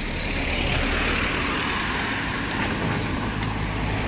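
Road vehicle noise: engine rumble and tyre and road noise, rising slightly in the first second and then holding steady.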